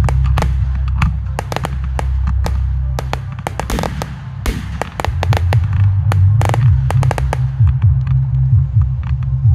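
Fireworks display: a rapid run of sharp bangs and crackles from bursting shells, densest through the first seven seconds and thinning near the end, over a heavy low rumble.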